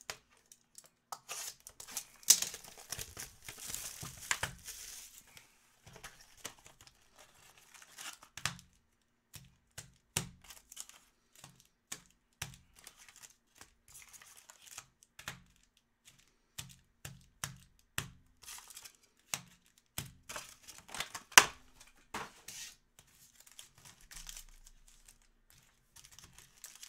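A trading-card hobby box being opened and its foil-wrapped packs handled. Tearing and crinkling of wrapping fills the first few seconds, then comes a long run of light taps and clicks as the packs are taken out and shuffled on the table.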